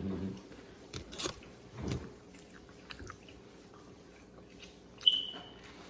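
A person chewing and biting a crunchy fried chicken sandwich close to the microphone, with a few short crunches spaced out. A brief high squeak about five seconds in.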